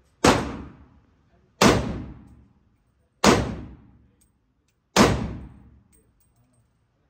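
Four single gunshots from a red AR-style firearm, fired slowly about one and a half seconds apart, each followed by a decaying echo in the enclosed indoor range.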